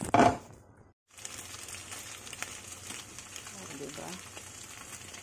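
Dumplings sizzling as they fry in a little oil in a pan: a steady, even frying hiss that starts after a brief cut about a second in. A short loud sound comes right at the start.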